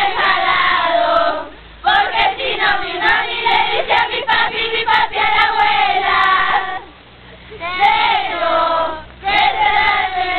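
A group of young voices singing together in phrases, with short pauses between them, about a second and a half in and again about seven seconds in.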